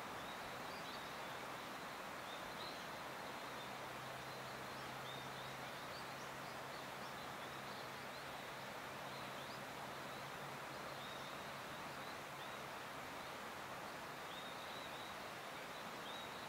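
Quiet rural outdoor ambience: a steady hiss with faint, high, short chirps scattered throughout. A low steady hum runs from about four seconds in until about thirteen seconds.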